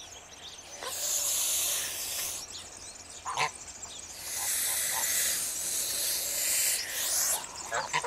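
Domestic geese hissing in two long breathy bursts, with a short goose call between them a little before the middle.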